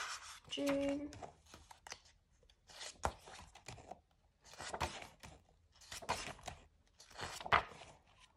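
Paper pages of a bound planner being turned and pressed flat by hand: several short paper rustles spread across a few seconds.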